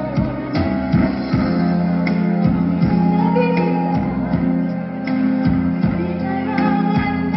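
Karaoke-style backing track with guitar and a steady beat playing through a PA system, a mostly instrumental break in a duet by two women singers; a held vibrato note ends right at the start and singing comes back in near the end.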